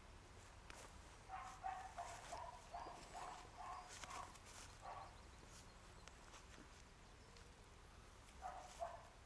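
A dog barking: a quick run of about nine short, high-pitched barks, then two more near the end.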